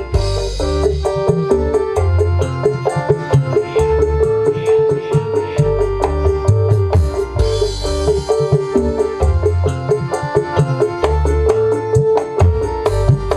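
Recorded song with a keyboard melody, drums and a heavy, pulsing bass line, played loudly through a SoundArt SSA18Sub 18-inch subwoofer and its top speaker in a bass demonstration.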